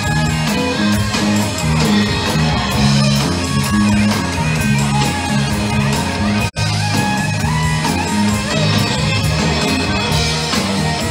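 Live rock band playing an instrumental passage with electric guitar and drums, loud and full. The sound cuts out for a split second about six and a half seconds in.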